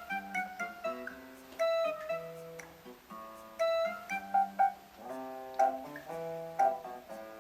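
Background music: gently plucked acoustic guitar playing a melody of picked notes.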